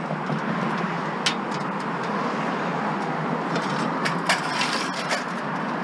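Steady motor-vehicle noise, with a few sharp clicks and knocks about a second in and again near the end.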